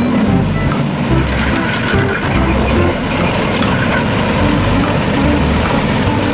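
Garbage truck sound effect: a truck engine running steadily with a continuous low rumble.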